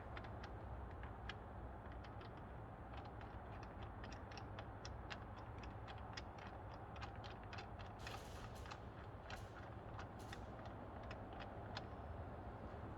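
A socket ratchet clicking in a quick, steady run as the 16 mm centre bolt of a Mini Cooper R50 steering wheel is wound down onto the steering shaft, with a short rasp about eight seconds in.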